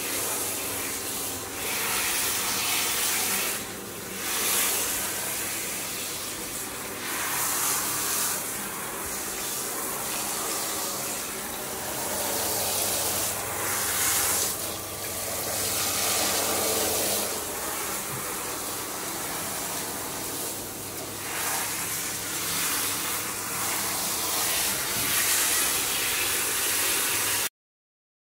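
Handheld shower head spraying water onto a dog's wet coat during a bath: a steady rushing hiss that swells and eases as the spray moves. It stops abruptly near the end.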